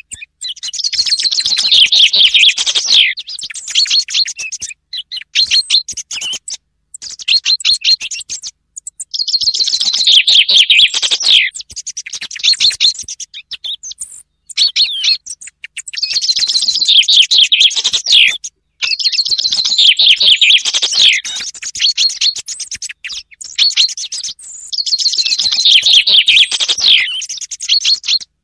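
Recorded common chaffinch song: five loud phrases, each a rattling trill that falls in pitch and ends in a flourish, with shorter, softer song thrush phrases in the gaps. It is a mixed thrush-and-chaffinch lure call used to draw both birds in for hunting.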